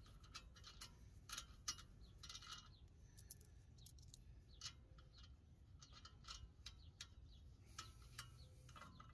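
Near silence: faint, irregular light clicks and scrapes of metal suspension hardware being handled by hand, over a low steady hum.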